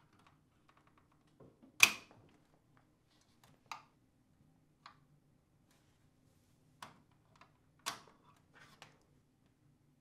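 Scattered sharp plastic clicks and knocks, the loudest about two seconds in, as wiring harness connectors are unplugged from a Whirlpool dishwasher's main control board and the board is handled.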